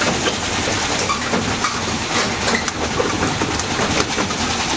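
Small tourist road train rattling and clattering over the paving of a narrow alley, a steady din of running noise crowded with quick loose knocks from the shaken carriages.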